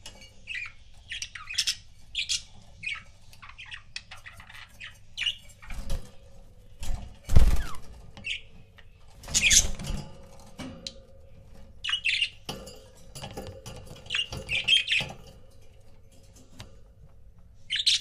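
Budgerigars chirping and chattering in short, bright calls, with a loud rustle or thump about seven seconds in.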